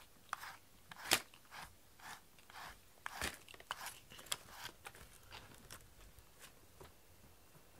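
Wire-pin slicker brush with beaded pin tips drawn through a cat's fur: a string of short scratchy rasps, about two a second, thinning out near the end.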